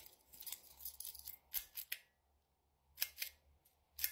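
A few short, sharp clicks and small rattles from a plastic pull-chain lamp holder being handled and its pull-chain switch worked, the light coming on near the end; the loudest clicks come about three seconds in and again near the end.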